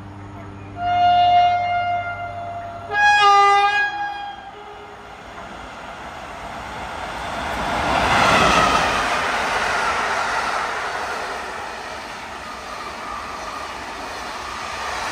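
Electric locomotive of a passing express train sounding two horn blasts of about a second each at different pitches, then rushing past at speed, loudest about eight seconds in. Passenger coaches follow, rolling steadily over the rails.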